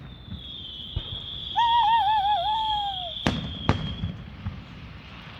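Fireworks going off: a long high-pitched whistle that slowly drops and fades after about four seconds, with sharp bangs about a second in and twice more about half a second apart after three seconds. In the middle a loud wavering tone warbles and then falls away.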